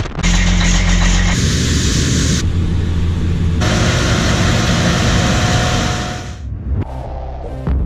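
Farm machinery engines running, heard as a run of short clips cut together, with the sound changing abruptly every second or two and dropping a little near the end.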